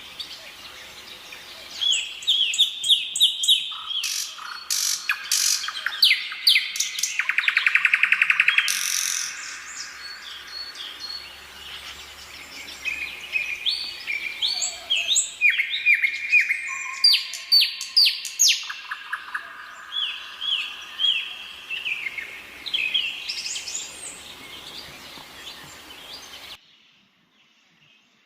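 Birds singing and chirping: runs of short, quick, falling whistled notes, with a rapid trill about eight seconds in. The birdsong cuts off abruptly near the end.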